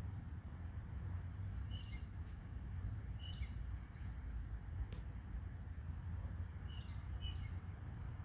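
Small birds chirping: short high chirps about once a second, with three brief twittering calls, over a steady low rumble.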